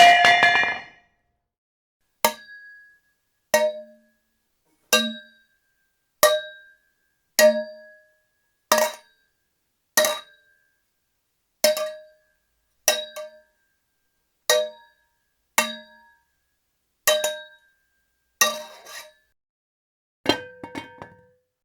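A metal pipe falling and clanging on a hard floor, repeated as a run of separate takes about every second and a half. Each hit rings at a few fixed pitches and fades within about a second; the last one, near the end, bounces and rattles several times.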